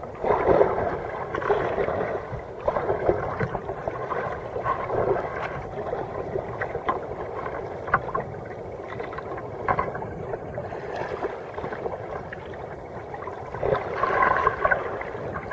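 Water sloshing and splashing against the bow of a sea kayak moving through choppy water, rising and falling in uneven surges with many small splashy clicks.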